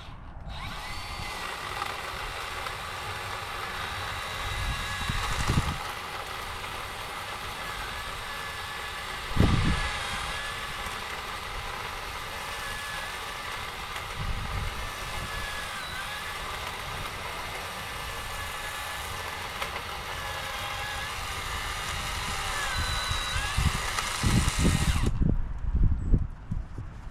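Power saw running steadily while cutting dead tree branches, its pitch dipping briefly now and then under load, with a few heavy thuds along the way; it stops about two seconds before the end.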